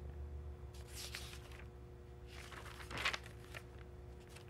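Faint rustles and soft taps of a paper report being handled over a faint steady hum, the loudest rustle about three seconds in.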